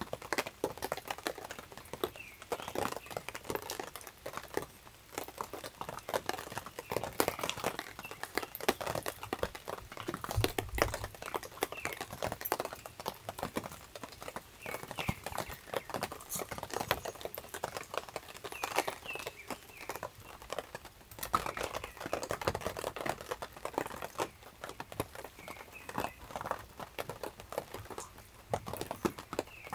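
Pomeranians eating dry food from stainless steel bowls: an irregular run of crunches and small clicks as they chew.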